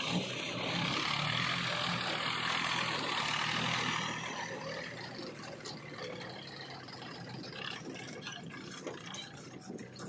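Swaraj tractor's diesel engine pulling a trolley loaded with earth, loudest over the first few seconds and then fading as the tractor moves away.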